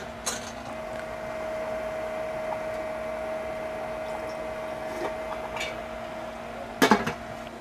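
Pot of water with chicken necks and heads boiling on the stove, a steady hiss over a constant electrical hum, with a few short clatters of kitchenware near the end.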